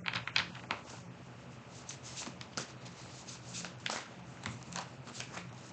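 Tarot cards being shuffled and handled by hand: a scatter of light, irregular card clicks and flicks.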